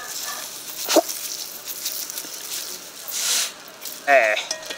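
Fine seasoning sprinkled by hand onto a raw chicken in a cast-iron pot, grains pattering, with a sharp tick about a second in. Near the end, a puppy gives a short wavering whimper.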